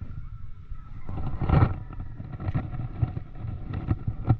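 Water slapping against a small wooden boat's hull, with low rumbling and scattered knocks, the loudest about a second and a half in.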